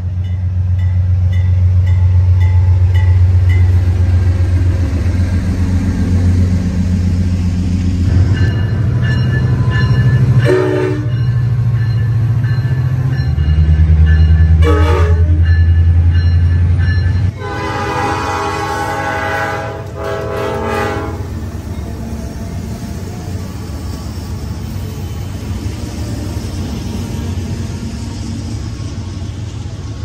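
Diesel locomotive working hard with a heavy low rumble, sounding its air horn in salute: two short blasts, then a longer blast of a few seconds. After that, the steady rolling noise of the passing train.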